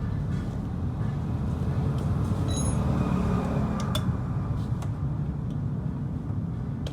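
Yamaha Exciter 135 single-cylinder engine running, revving up and easing back around two to four seconds in. The engine has just had its scored cylinder replaced.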